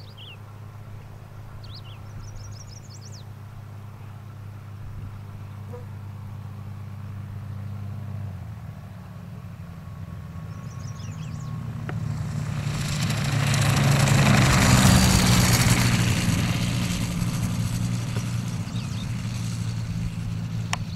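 Light high-wing propeller aircraft's engine droning as it approaches low, its note stepping down slightly about eight seconds in. It then swells loud with a rush of propeller and air as it passes close by, and eases off as it moves away. A few faint bird chirps early on.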